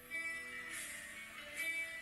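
Guitar strumming chords as a song's instrumental intro begins: three strummed chords ringing on between strokes.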